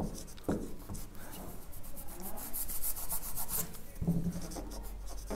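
Marker pen rubbing across a whiteboard in a quick run of short strokes as words are written.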